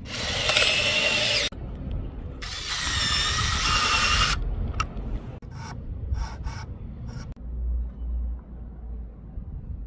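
Power drill boring into wood with a countersink drill bit, in two bursts of about one and a half and two seconds, followed by a few sharp clicks and knocks.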